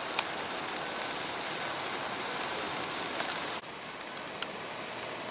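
Road flare burning on pavement: a steady fizzing hiss with small crackles, dropping slightly in level about three and a half seconds in.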